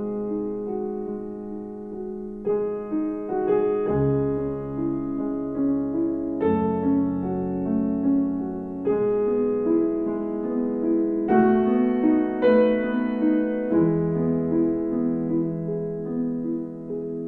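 Slow, gentle piano music, with held notes and chords that change every couple of seconds.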